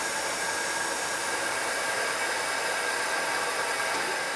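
Small motor-driven stone-cutting saw running steadily: an even whirring hiss with a faint high steady whine.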